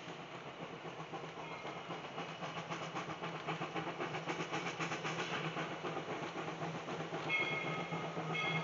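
Bridgton & Saco River #7, a two-foot gauge steam locomotive, approaching, its rhythmic exhaust growing louder as it nears. Its steam whistle sounds about seven seconds in, breaks off briefly and blows again.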